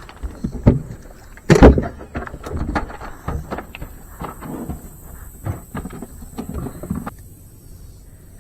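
A run of knocks and clatters of things being handled, with a loud thump about a second and a half in; it stops about seven seconds in.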